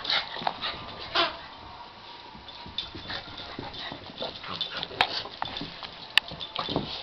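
Two dogs play-wrestling on carpet: irregular scuffling and tapping of paws and claws with short dog noises, and two sharp clicks about five and six seconds in.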